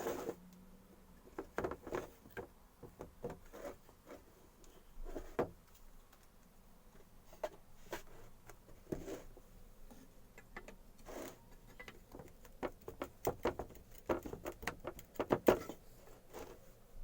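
Irregular light knocks, clicks and short scrapes from hands handling and working on an old wooden grater, with a louder cluster about fifteen seconds in.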